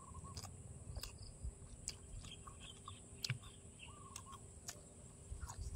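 Faint chewing: scattered soft crunches and mouth clicks of someone eating pounded long-bean salad. A bird gives two short wavering calls in the background, at the start and about four seconds in.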